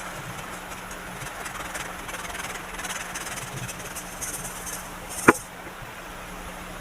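Soft crumbling and rustling of baking soda powder being worked by hand, with faint scattered ticks and one sharp tap about five seconds in.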